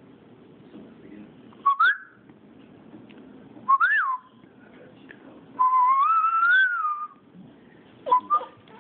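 A dog whines in high-pitched calls: two short rising-and-falling whines, then one long, slightly rising whine. Near the end come a few quick clicks of her jaws snapping shut as she bites at the air.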